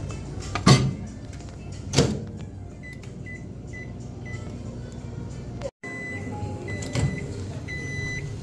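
Microwave oven being loaded and set: two sharp knocks as the packet goes in and the door is handled, then a run of short high beeps from the keypad as the cooking time is keyed in, and a few longer beeps near the end.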